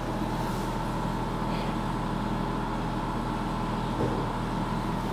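Steady machinery hum with a low electrical drone, typical of indoor ventilation plant, with a small bump about four seconds in.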